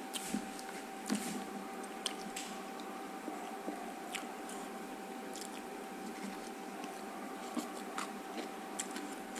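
Close-up mouth sounds of chewing and biting rice and greens, with scattered light clicks of wooden chopsticks picking at food in a foam takeaway box. A faint steady whine runs underneath.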